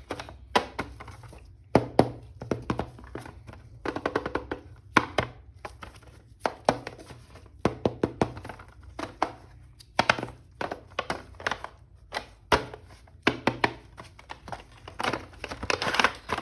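Irregular sharp plastic clicks and knocks from unpacking and handling a toy action figure, coming thick and fast near the end.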